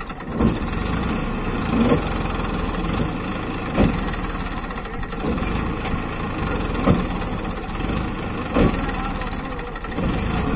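Diesel farm tractor engine working hard under load as the tractor and its loaded trolley sit stuck in loose sand, with several short, louder bursts of power.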